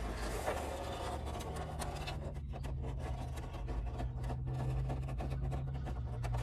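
Spin-on oil filter on a Ford motorhome being unscrewed by hand: scratchy rubbing with many small clicks as the hand twists the filter against its mount. A steady low hum sets in about a second and a half in.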